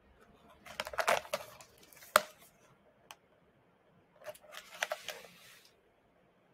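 A small cardboard box handled close to the microphone: two bouts of crackly rustling and clicking, with one sharp tap about two seconds in that is the loudest sound.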